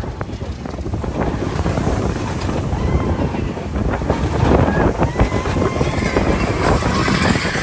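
Seven Dwarfs Mine Train roller coaster running fast along its track, its wheels rumbling and rattling, with wind buffeting the microphone. A few short rider shouts break through now and then.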